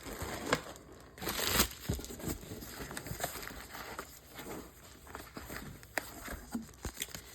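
Packaging crinkling and rustling as parts are unwrapped by hand, with scattered sharp clicks and taps and a louder rustle about a second and a half in.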